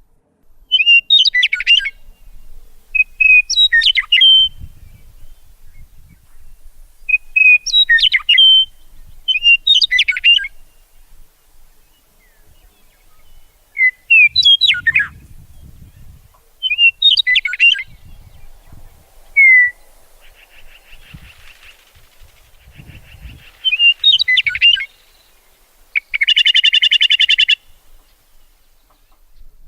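Songbird singing short, chirpy phrases of quick up-and-down notes, repeated every two to three seconds. Near the end comes a rapid buzzing trill.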